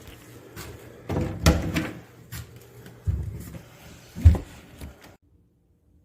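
A few sudden knocks and thumps, the loudest about four seconds in, then the sound drops away to near silence just after five seconds.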